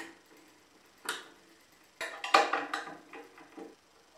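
Allen wrench clinking and scraping against the metal bolts of an outdoor microwave radio mount as they are tightened down: a single clink about a second in, then a quick run of irregular clinks and scrapes from about two to three and a half seconds in.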